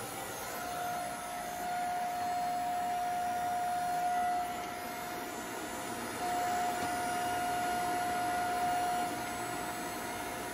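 Hydraulic power unit running: a 5-horsepower electric motor driving a hydraulic pump, with a steady whine. A clear higher tone comes in twice for a few seconds each, while the foot pedal shifts the control valve and drives the press's hydraulic cylinder ram.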